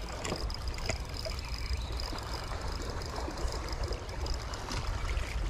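Water trickling and lapping, with wind rumbling on the microphone and a faint steady high tone.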